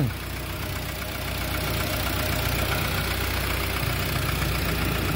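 Car engine idling steadily and quietly, running again once its hard-starting fault was traced to the battery.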